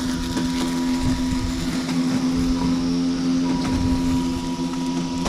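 Robotic lawnmower's motor running with a steady hum that holds one pitch, over an uneven low rumble.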